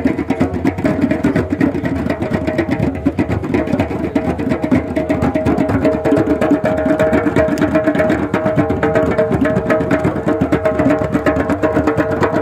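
A group of djembe hand drums played together in a drum circle, a dense, fast rhythm of many hand strokes. A steady held note runs under the drumming.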